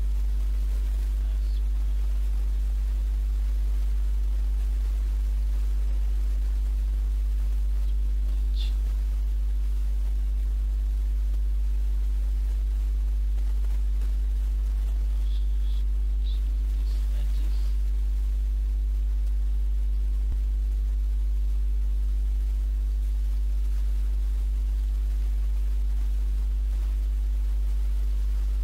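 Steady low electrical mains hum with its overtones, at an even level throughout, with a few faint high chirps in the middle.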